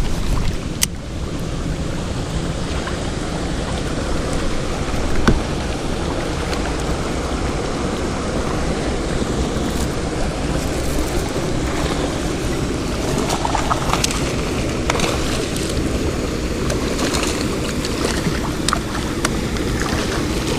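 Wind buffeting the microphone over water moving around a kayak on a river: a steady, low rumbling noise with a few light sharp clicks.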